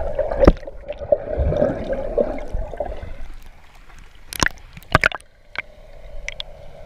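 Muffled bubbling and churning water heard through an underwater camera as a snorkeler swims through bubbles. About three seconds in it drops quieter as the camera breaks the surface, with a few sharp splashes, and the underwater bubbling returns near the end.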